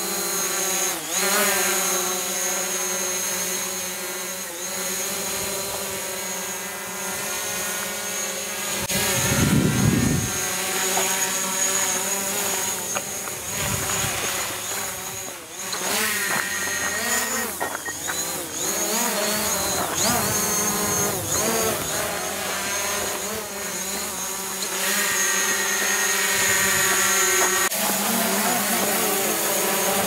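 DJI Mavic Pro quadcopter's propellers whining in flight, the pitch wavering up and down as it is steered through tight manoeuvres. A brief low rumble comes about a third of the way in.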